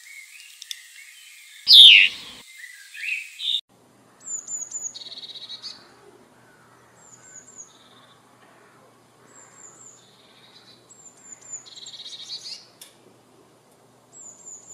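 A common chaffinch calling, with one loud call about two seconds in. Then a Eurasian blue tit singing: about five phrases, each of two or three very high, thin notes followed by a lower trill.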